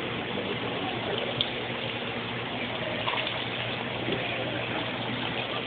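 Water running steadily down a small artificial rock waterfall fountain, an even splashing wash. One small click about a second and a half in.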